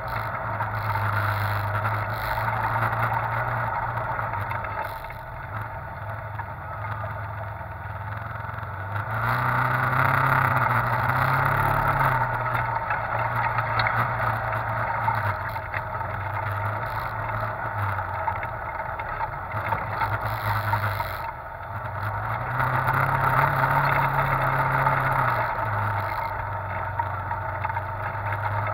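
Side-by-side UTV engine running as it drives a dirt trail, with the throttle opened up twice: the engine note rises and grows louder about ten seconds in and again a little past twenty seconds in.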